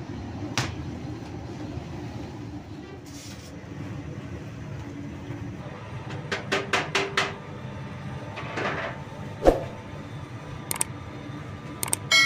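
Steady low hum of bakery machinery, with scattered clanks of a metal scoop against a steel dough-mixer bowl: a quick run of five knocks about six and a half seconds in and a single loud thump a few seconds later.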